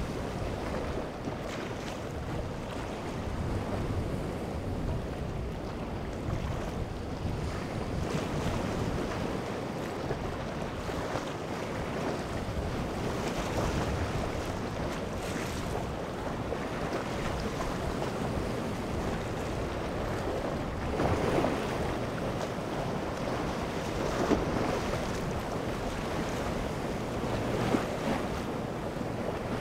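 Surf washing against the rocks of a jetty, with wind rushing on the microphone: a steady rushing noise with a few brief louder moments in the second half.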